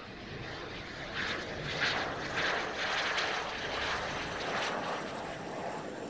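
Kawasaki T-4 jet trainer's twin F3 turbofan engines running on the landing approach, a steady jet rush that swells about a second in and eases off near the end.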